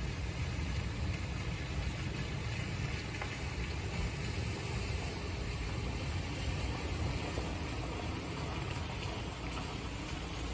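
Summer rainstorm: rain falling steadily in an even hiss, with a constant low rumble underneath.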